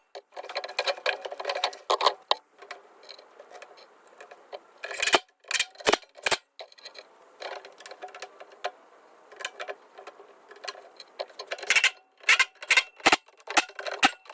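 Screws being driven into the housing of a Stihl BR600 backpack blower: scattered sharp clicks and ticks of the screwdriver and parts, with a quick run of clicks near the end.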